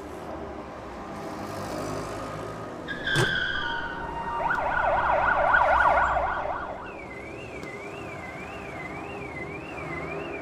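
City traffic rumble with emergency-vehicle sirens: a fast yelping siren, the loudest part, from about four and a half to seven seconds in, then a slower siren warbling up and down about one and a half times a second. A sharp click about three seconds in.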